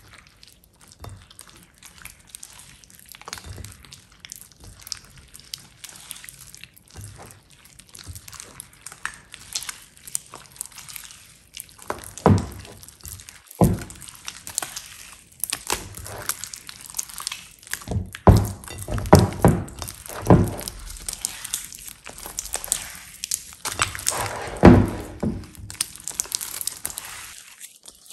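Thick, glossy slime being kneaded, squeezed and stretched by hand: wet squishing with irregular sharp pops and clicks, sparse at first and louder and more frequent in the second half.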